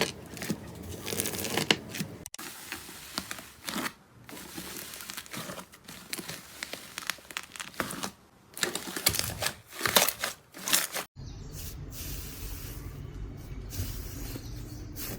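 Hands squeezing, poking and stretching slime, giving sticky crackling and popping in short clips cut one after another; near the end it changes to a quieter, steadier texture.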